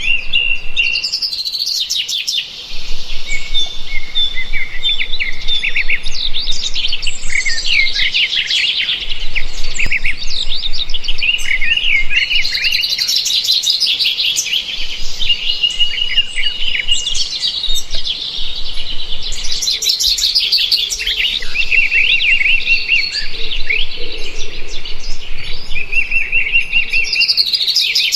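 Several birds chirping and singing at once: quick trills and short chirps overlapping with held whistled notes, thinning briefly about two seconds in.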